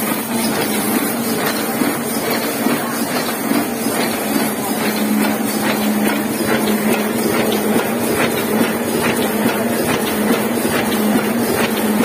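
Heidelberg KORS single-colour sheet-fed offset press running: a steady mechanical running noise full of small ticks over a constant hum.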